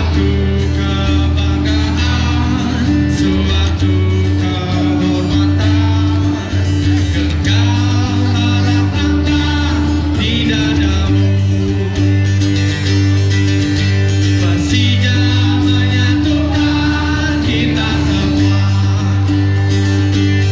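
A man singing into a microphone while strumming an acoustic guitar, with steady low notes held beneath the vocal line.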